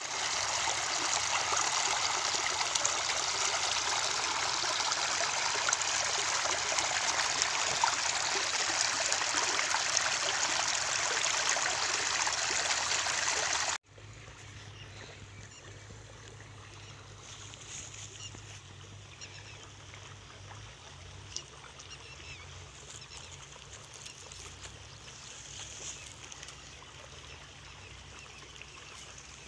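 Water in a small shallow stream flowing fast over a grassy bank, a loud, steady rush. It cuts off abruptly about 14 seconds in, leaving a quiet outdoor background with a faint low hum.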